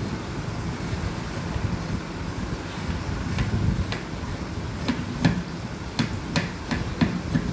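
Knife scraping the skin off snake gourds: a run of short, sharp scrapes in the second half, over a steady low rumble.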